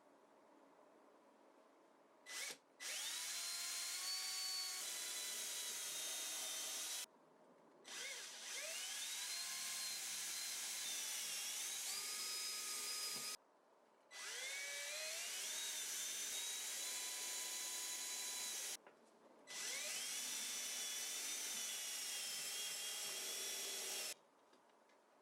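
Electric drill running in four spells of about five seconds each, each starting with a rising whine as the motor spins up and cutting off abruptly, the pitch dipping briefly now and then as it takes load.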